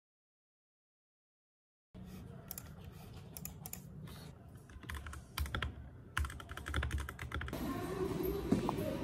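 About two seconds of dead silence, then rapid clicking typing on a computer keyboard. A little before the end the typing gives way to a louder, steady background noise.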